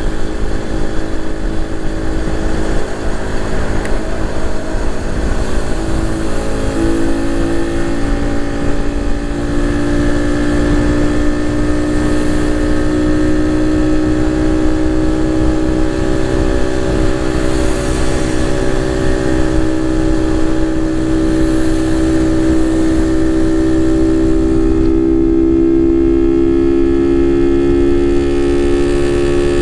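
Suzuki Raider 150 Fi's single-cylinder four-stroke engine pulling steadily under load, its note climbing slowly and evenly as the bike gathers speed, over a constant rushing noise.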